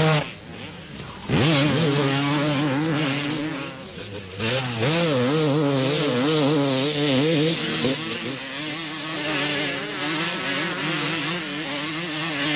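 250cc motocross bike engines racing at high revs, the pitch wavering up and down with throttle and gear changes. The engines drop away briefly near the start, then one comes back with a sharp rising rev about a second and a half in.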